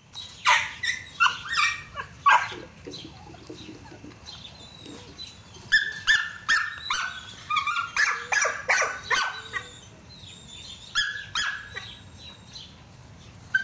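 Dog barking and yipping in short, high-pitched bursts, in three runs: one right at the start, a longer one in the middle, and a brief one near the end.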